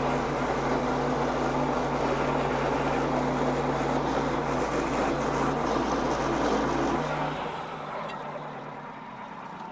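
Wood-Mizer LX55 sawmill running steadily with a constant low hum. About seven seconds in, the low hum drops away and the sound fades as the mill winds down.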